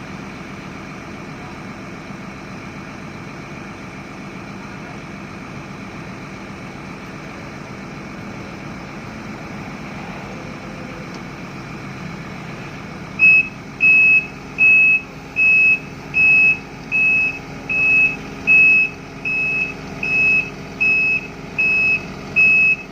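Heavy diesel machinery engine running steadily. About halfway through, a reversing or travel warning alarm starts beeping loudly, about once every three-quarters of a second, over the engine.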